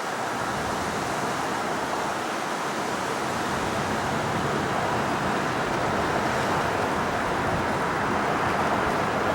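Airbus A350's Rolls-Royce Trent XWB turbofan engines at takeoff thrust: a steady rushing jet noise that grows slowly louder.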